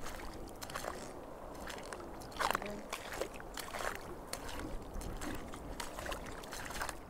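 Irregular sloshing and splashing of footsteps wading through shallow water over a rocky coral reef flat.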